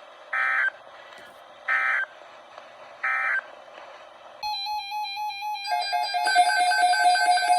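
Three short EAS end-of-message data bursts, each about a third of a second and evenly spaced, over weather-radio hiss; they mark the end of the warning broadcast. About four and a half seconds in, an electronic alert tone starts beeping in rapid pulses, and about a second later it turns louder with several pitches at once.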